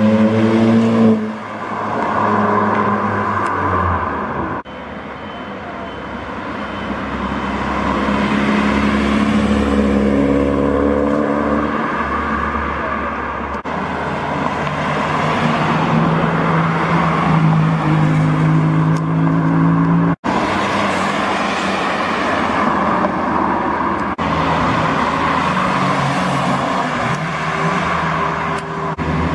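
Modified cars pulling away one after another, each engine note rising as it accelerates and revs through the gears, with tyre and road noise as they pass.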